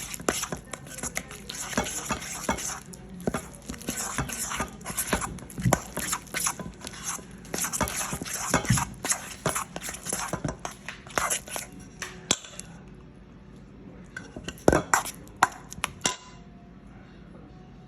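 A utensil stirring a thick gochujang chili-paste sauce in a bowl: many quick, uneven clinks and scrapes against the bowl, then a few sharper knocks near the end before the stirring stops.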